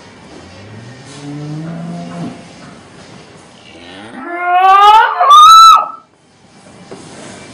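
A cow mooing twice: a low moo rising in pitch about a second in, then a much louder call a few seconds later that climbs steeply to a high, strained note and cuts off sharply.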